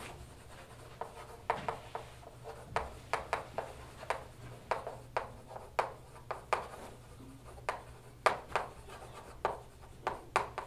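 Chalk writing on a blackboard: a run of sharp, irregular taps and short scratches, a few a second, as each word is written out.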